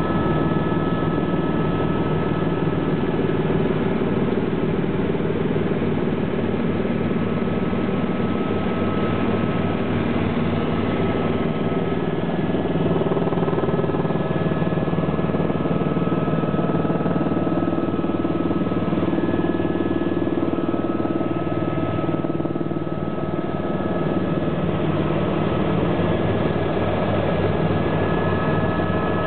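Helicopter turbine and rotor heard from inside the cabin: a steady loud drone with a high steady whine above it and a fast low pulsing from the rotor beneath.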